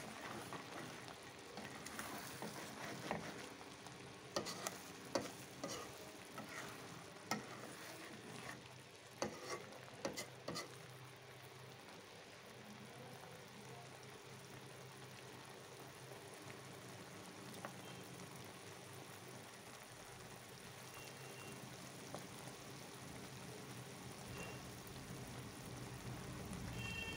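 Spiced fish-roe mash frying in a metal karai with a steady faint sizzle. A metal spatula scrapes and clacks against the pan several times in roughly the first ten seconds, after which only the sizzle remains.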